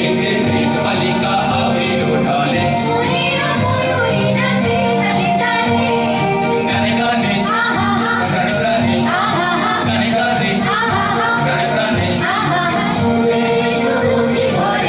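A Bangla Adhunik or Hindi song: a singer singing over instrumental accompaniment with a steady percussive beat.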